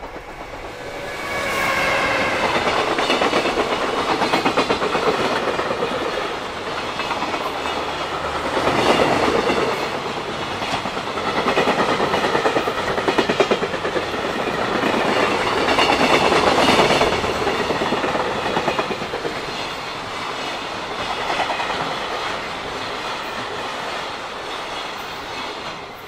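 A long container freight train hauled by a JR Freight EF210 electric locomotive passes close by at speed, its wagon wheels clattering rhythmically over the rail joints. The clatter swells and ebbs as the wagons go by, then falls off sharply near the end as the last wagon passes.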